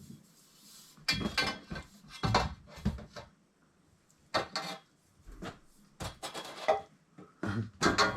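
Small hard metal objects clinking and clattering in about five short bursts as they are handled, typical of copper pipe fittings and tools being rummaged through and set down.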